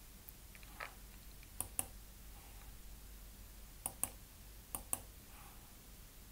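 Computer mouse clicking a few times, in quick pairs of sharp clicks.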